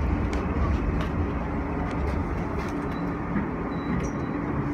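Steady rumble of an R160A subway car (Alstom-propelled) rolling slowly along a platform, heard from inside the car, with a faint steady hum and a few light clicks.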